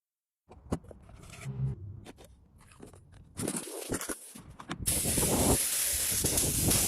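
Restoration work noises: scattered clicks and scraping, then a steady loud hiss from about five seconds in.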